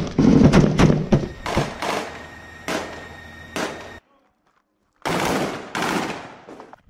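Rifle gunfire: rapid shots over the first two seconds, then single shots about a second apart. After a second of dead silence, two more shots echo near the end.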